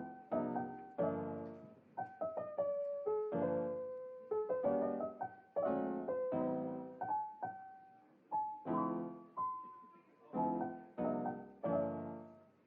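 Solo piano music: a gentle run of single notes and chords, each one fading after it is struck, with a short pause near the end.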